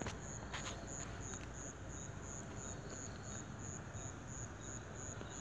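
Faint high-pitched chirping that pulses evenly about three times a second over low background hiss.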